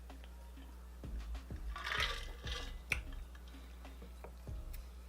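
Close-miked eating sounds of someone chewing pizza: soft wet mouth clicks and smacks, with a louder wet, squishy burst about two seconds in.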